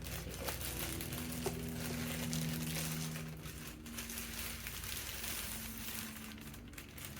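Crinkling and rustling of packaging being handled, with many small irregular crackles.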